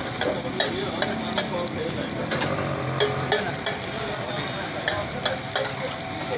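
Sliced onions sizzling in hot oil on a flat tawa griddle while a metal spatula stirs them, scraping the pan and knocking against it with sharp clicks at uneven intervals.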